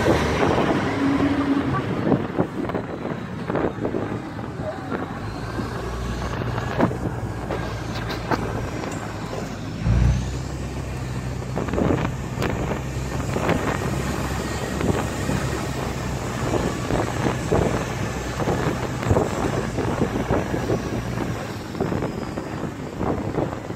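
Ride on the open upper deck of a bus: the bus engine running with a low steady hum, wind on the microphone and street traffic, with frequent short rattles and knocks and one heavy thump about ten seconds in.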